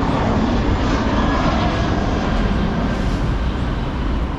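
Steady, loud roar of motor traffic on a busy city avenue.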